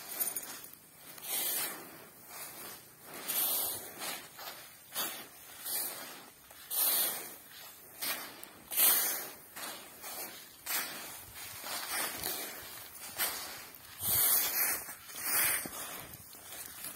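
Hands scooping and turning a heap of granular urea fertilizer spread on a woven sack, hand-mixing it: a gritty, hissing rustle of the granules repeated about once a second.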